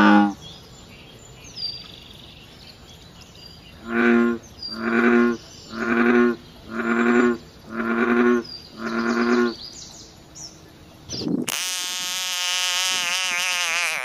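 American bullfrog calling with deep croaks: one at the start, then after a pause a run of six about a second apart. About two seconds before the end, a different, longer wavering call takes over.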